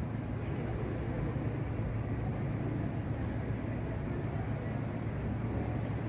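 A steady, low engine-like rumble with a constant hum.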